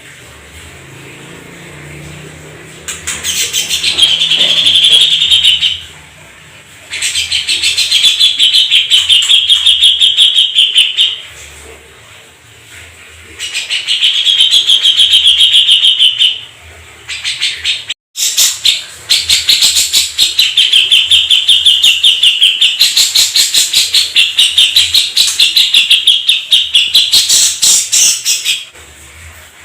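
Domestic canary singing long rolling trills: four phrases of rapid, evenly repeated notes, the last and longest lasting about nine seconds.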